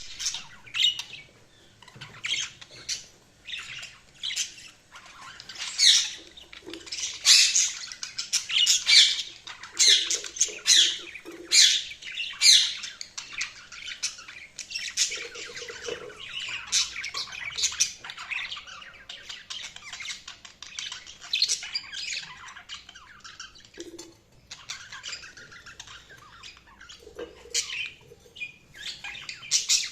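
Budgerigars chirping and squawking in a constant chatter of quick, high, overlapping calls, loudest in a run of sharper squawks a few seconds in.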